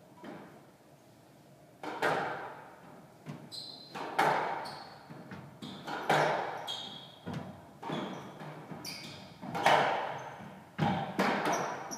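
Squash rally: the ball cracks off rackets and walls, each hit echoing around the court, the loudest strikes coming about every two seconds with lighter knocks between. Court shoes squeak briefly on the wooden floor between shots.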